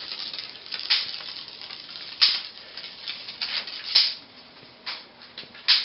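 Crinkly rustling and crackling of sheet vinyl flooring and double-sided adhesive tape being handled as the floor is laid back down, with four sharper crackles spread through it.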